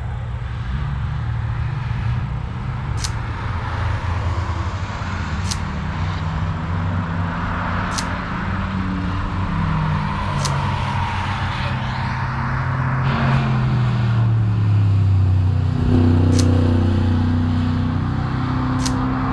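Race car engines running on the circuit, their pitch rising and falling as cars accelerate and pass, loudest about three quarters of the way through. Sharp single clicks come roughly every two and a half seconds.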